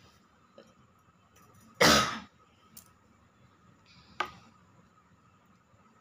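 A single loud cough lasting about half a second, about two seconds in, followed about two seconds later by a short sharp click.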